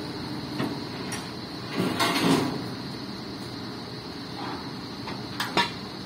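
The truck's steel loading ramp being handled: knocks and scrapes, with a louder noisy rush about two seconds in and two sharp clicks near the end.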